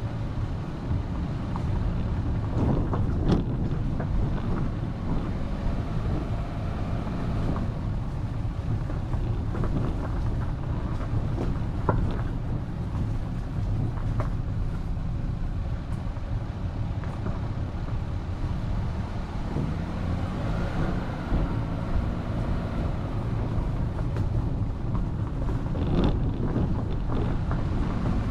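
A vehicle driving along a road: a steady low rumble of engine and road noise, with a few short knocks along the way.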